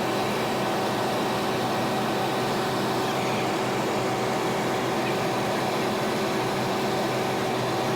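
Steady mechanical drone: an even rush of noise with constant humming tones in it, unchanging in level.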